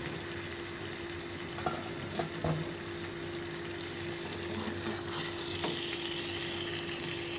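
Chicken pieces in spiced masala sizzling as they fry in a pan, a steady hiss that swells a little about five seconds in, with a few light clicks of a spatula turning them. The meat is being dry-fried (kasha) in its masala.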